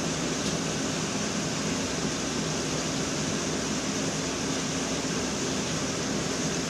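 Steady background hiss with a low hum underneath, unchanging throughout, with no distinct events.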